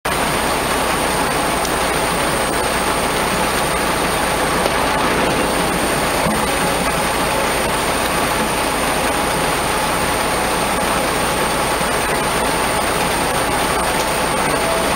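Heavy diesel truck engine running steadily, a loud continuous mechanical rumble and hiss with no change in pace.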